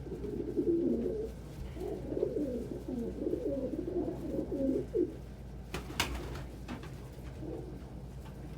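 Domestic pigeons cooing: low, rolling coos repeated over several seconds, fading after about five seconds, with one sharp click about six seconds in.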